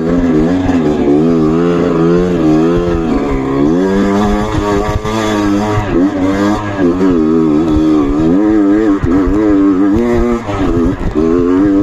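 Trail motorcycle engine revving up and down continuously, its pitch rising and falling over and over as the throttle is worked.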